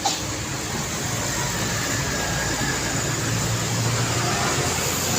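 Steady road traffic noise with a car engine's low hum that swells in the middle, and a sharp click right at the start.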